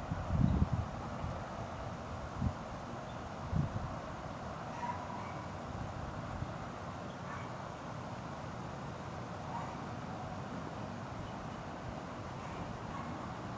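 Quiet outdoor evening ambience: a steady faint hiss with occasional faint insect chirps. A few short low thumps come in the first few seconds.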